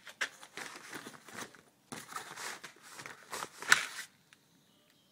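Fabric boat cover rustling and crinkling as it is brushed and handled, in a run of irregular scrapes. The loudest comes near the end, and the rustling stops about four seconds in.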